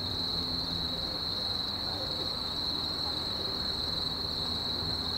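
Steady, high-pitched chirring of night insects, unbroken throughout, over a low steady rumble and faint distant voices.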